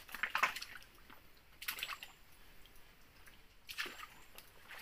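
Water splashing and dripping in a shallow rocky stream, in three short bursts.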